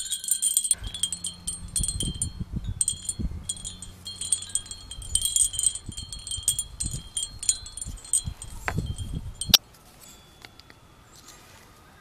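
Metal wind chimes ringing with many light strikes, over low bumps. A sharp click comes about nine and a half seconds in, and after it the chimes fade to faint.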